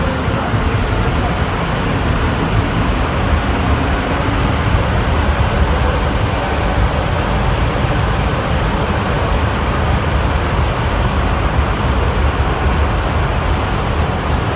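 Concarril NS-88 rubber-tyred metro train running between stations, heard from inside the car: a steady, loud rumble and rushing noise.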